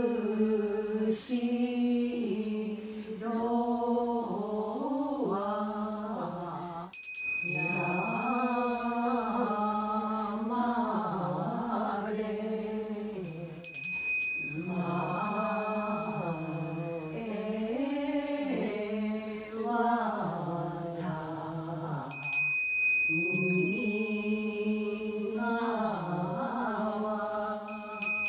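Voices chanting a Japanese Buddhist goeika hymn in slow, drawn-out, gliding notes. A bell is struck four times, about every seven seconds, and each strike rings on for several seconds.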